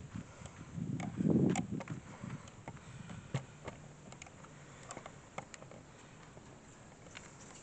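Handling noise from a handheld phone camera and steps on a gravel road: a soft thump about a second in and scattered light clicks over the first few seconds, settling into faint outdoor background with no train audible.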